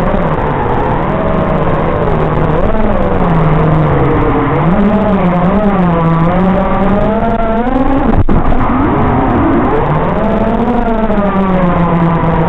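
FPV racing quadcopter's brushless motors and propellers whining, the pitch rising and falling with the throttle. The sound briefly drops out about eight seconds in.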